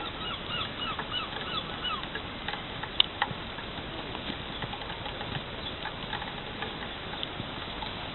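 Background noise of a five-a-side football game, with a run of short high chirps in the first two seconds and one sharp knock of a ball being kicked about three seconds in.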